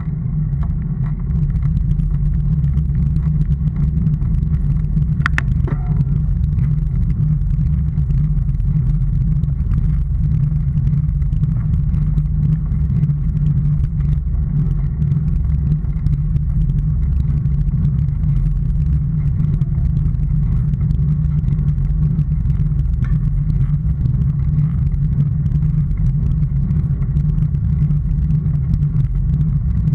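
Steady low rumble of a road vehicle on the move, picked up by a vehicle-mounted camera: engine, tyre and wind noise, with one brief click about five seconds in.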